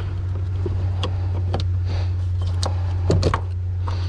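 Scattered light clicks and knocks of a fuel pump assembly and its lock ring being worked loose by hand at the tank opening, with a cluster of louder knocks about three seconds in, over a steady low hum.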